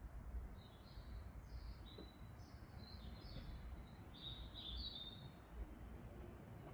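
Small birds chirping faintly: a string of short high chirps, several a second at times, over a low background hum.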